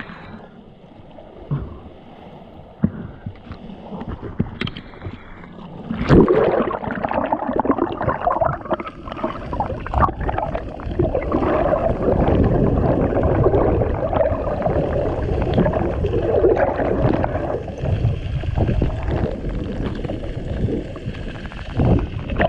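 Strong river current rushing and bubbling around an underwater camera. It is fairly quiet with a few knocks at first, then turns loud and churning from about six seconds in.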